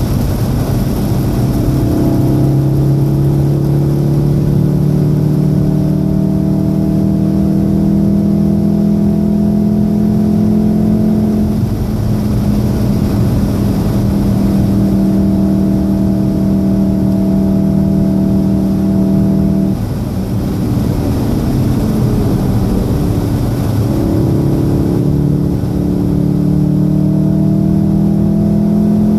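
2014 VW Golf VII R's turbocharged 2.0-litre four-cylinder engine pulling hard, heard from inside the cabin, its note climbing slowly through the revs with a gear change about twelve seconds in. It eases off around twenty seconds in for a corner, then climbs again near the end, over a steady hiss of tyres on the wet track.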